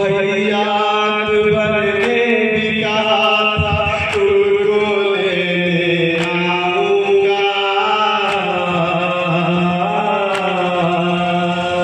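A nauha, a Shia lament recited by an anjuman, chanted in long, melodic held notes, with a few faint sharp clicks.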